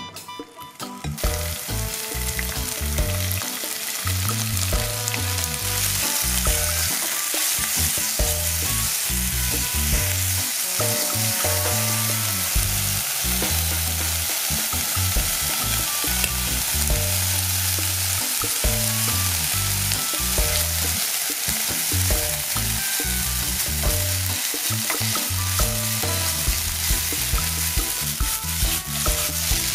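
Vegan gyoza filling hitting hot rice bran oil in a nonstick frying pan and sizzling, starting about a second in. The sizzle goes on steadily as the filling, and later rice, is stir-fried in the pan.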